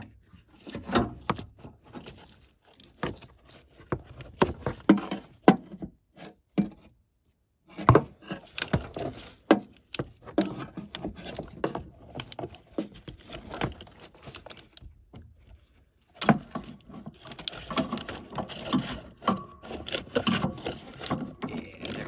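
Irregular clicks, knocks and rubbing of hand work: a clutch master cylinder being worked into place against the firewall among wiring harnesses, its notches being lined up to twist it in. The rubbing and scraping get busier in the last few seconds.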